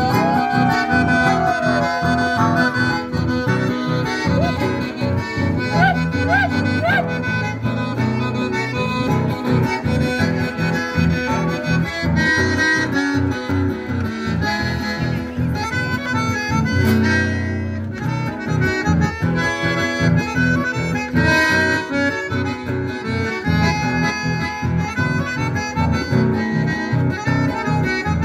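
Live band playing dance music: a violin and guitars over a steady, even beat, with a held, reedy melody line.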